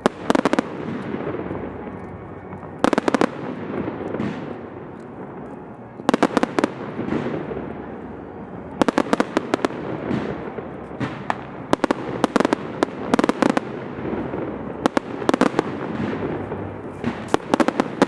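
High-altitude aerial fireworks shells bursting: clusters of rapid sharp bangs every two to three seconds, with a steady rumble of echoing explosions between them.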